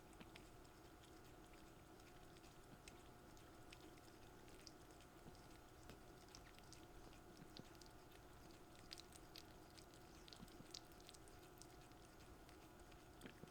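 Near silence: a faint steady hum under scattered soft clicks and rustles, a little busier past the middle, of kittens stirring in a cardboard box.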